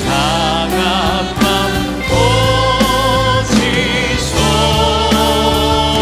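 Church worship team singing a Korean praise song: a male lead voice with choir over a band, with held bass notes and a steady drum beat.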